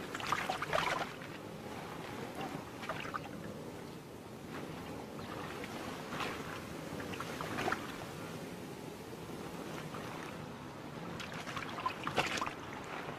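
Spotted hyena wallowing in a muddy water hole: irregular splashing and sloshing of water, loudest about a second in and again near the end.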